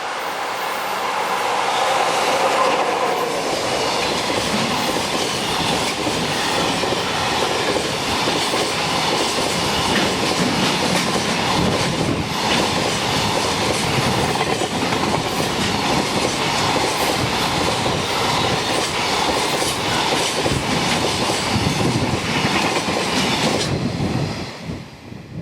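Freight train passing close by. In the first few seconds there is a pitched whine, then a long, steady run of wagons clattering over the rail joints. The sound drops away sharply near the end.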